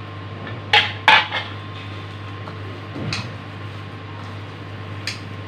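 Steel spoon knocking against plastic bowls: two sharp clinks about a second in as squeezed bottle-gourd water is spooned into the kofta mixture, then softer sounds of the dough being mixed by hand and one more light tap near the end.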